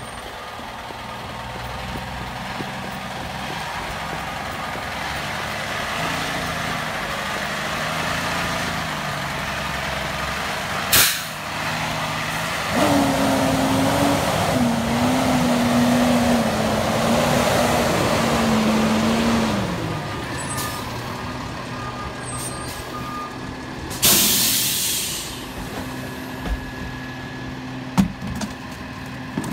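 Freightliner M2106 garbage truck's diesel engine running as the truck drives up and pulls past, its note rising and holding louder for several seconds in the middle. Two sharp air-brake hisses cut through: a very short one about a third of the way in and a longer one, about a second, later on.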